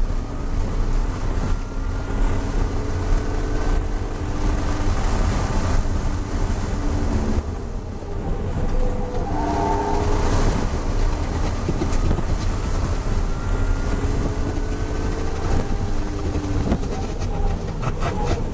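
BMW E36 M3's straight-six engine heard from inside the cabin, pulling hard with its pitch climbing in several long runs and a short drop about eight seconds in, over a heavy low road and wind rumble.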